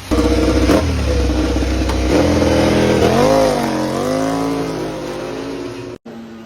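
MotoGP racing motorcycle engine revving hard, its pitch rising and falling in several blips, then cut off abruptly near the end.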